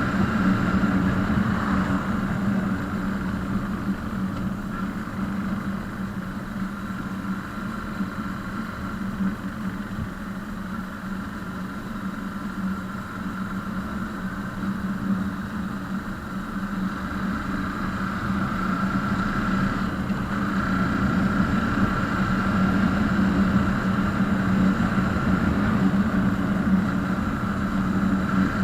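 Motorcycle engine running steadily with road and wind noise, easing off a little in the middle and building again toward the end.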